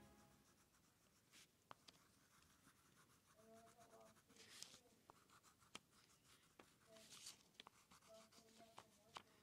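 Faint scratching of a crayon colouring on paper, with a few light taps.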